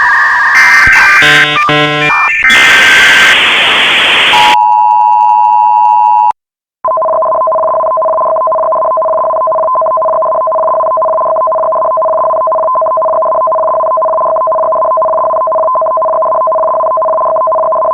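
Emergency alert broadcast tones: a jumble of shifting electronic beeps and a burst of static-like noise, then a short steady two-tone attention signal. After a brief gap comes a long, loud, steady two-tone alert tone.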